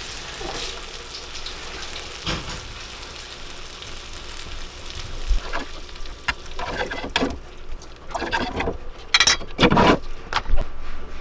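Walleye fillets sizzling in a frying pan on a gas burner. About six seconds in, a run of sharp clinks and knocks breaks in as the fish is lifted out and the pan's glass lid is set on.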